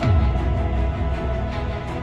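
Background music with a deep bass hit that drops in pitch right at the start, then carries on with steady sustained notes.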